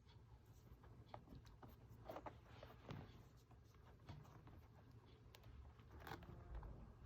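Near silence: quiet room tone with a few faint, short clicks and rustles, as of something being handled.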